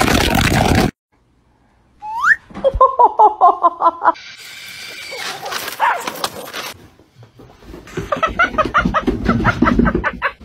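Dogs barking and yapping in quick repeated calls, several a second, after a second of silence about a second in.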